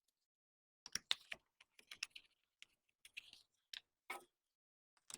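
Faint, irregular small clicks and taps as a new air filter is fitted into a string trimmer's air filter housing.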